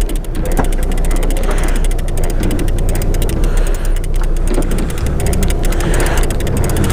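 Large conventional saltwater fishing reel clicking rapidly and steadily as its handle is cranked, over a steady low rumble.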